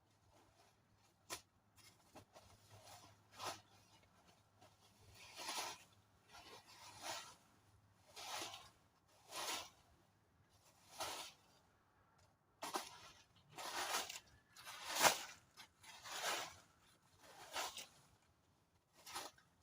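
Netting being handled and pulled into place: a string of short rustling swishes, roughly one every second, with a few sharp clicks among them, loudest near the end.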